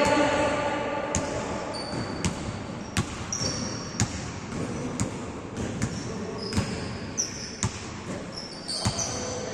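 Basketball bouncing on a hard gym court floor, a string of sharp thuds about once a second, mixed with short high squeaks of sneakers on the court.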